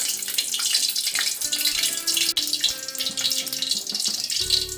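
Oil, ghee and vanaspati heating in a tempering pan, giving a steady high sizzling hiss, with soft background music.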